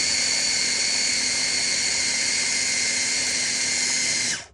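Electric mini food chopper running steadily, its motor whining as the blades mince a meat mixture in the bowl. It stops abruptly near the end.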